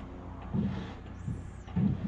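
Wooden dagger board being hauled up through its trunk by rope and pulley, giving two short, dull knocks, about half a second in and near the end, over a low rumble.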